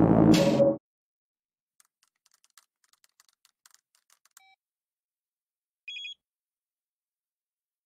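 Music with a beat cuts off within the first second. Then come faint cell phone keypad clicks as a text message is typed, and a short electronic beep about six seconds in as the message is sent.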